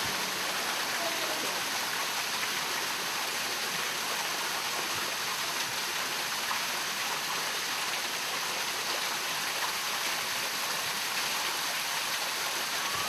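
Steady rushing hiss with no distinct events and no change in level.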